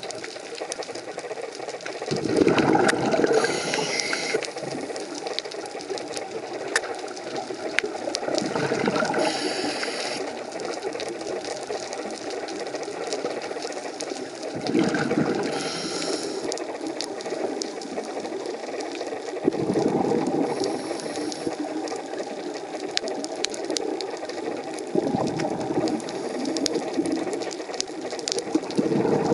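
Scuba diver breathing through a regulator underwater: five bubbly rushes of exhaled air, one about every five to six seconds, each followed by a short hiss of inhaled air through the regulator. Faint scattered clicks run underneath.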